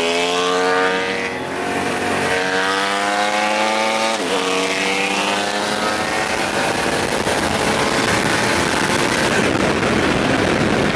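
A twin-turbo Coyote V8 Mustang and a liter sport bike accelerating hard side by side: the engine note climbs in pitch, drops at gear changes about 2 and 4 seconds in, and climbs again before blending into a steady rush of engine and wind noise at high speed.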